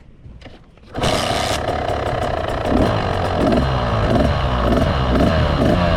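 Motorcycle engine with an FMF shorty exhaust pipe starting up about a second in and then running loud, with an even pulsing beat in its note.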